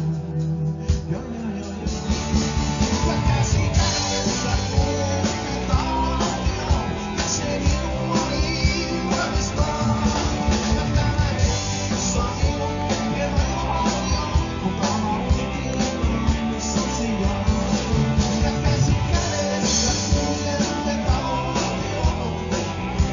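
Live rock band playing, with electric guitars over a steady drum-kit beat; the drums come in fully about a second in.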